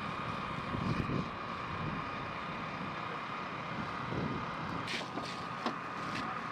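Steady outdoor background noise with a constant high-pitched whine, and a few faint clicks about five seconds in.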